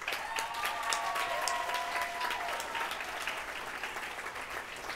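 Audience applauding, with a few held cheers over the clapping in the first half; the applause slowly fades.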